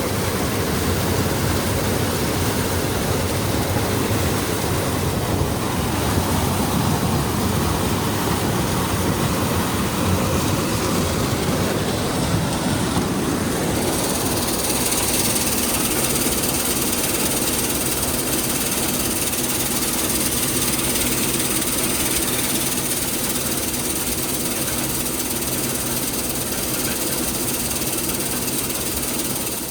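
Heavy diesel engine of old farm harvest machinery running steadily at work. About halfway through, the low engine note becomes steadier and more even.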